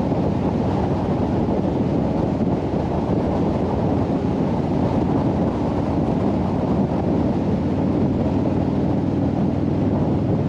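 Wind rushing over a GoPro's microphone on a moving Harley-Davidson touring motorcycle, with the V-twin engine running steadily underneath.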